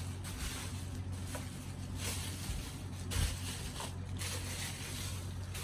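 Thin black plastic bag crinkling and rustling as it is handled, in several uneven bouts, over a steady low hum.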